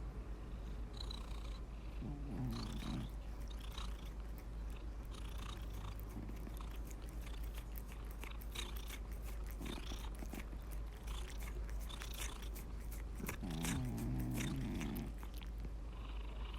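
Domestic cat snoring in its sleep: low, rough snores come every few breaths, the loudest about two seconds in and again near the end, with soft clicking between them.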